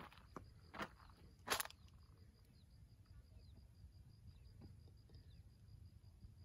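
Three footsteps crunching on dry fallen leaves and loose soil in the first two seconds, then quiet outdoor background.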